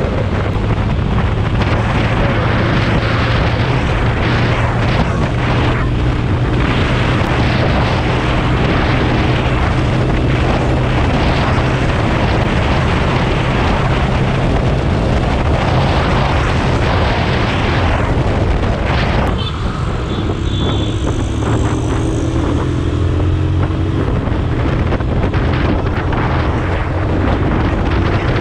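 Motorcycle engine running at highway speed under heavy wind rush on the microphone. About two-thirds of the way through the engine note briefly drops off, then climbs steadily as the throttle is opened again.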